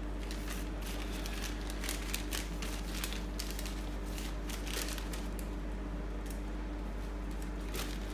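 Clear plastic parts bag being handled, crinkling and rustling in short irregular scrapes, over a steady low electrical hum.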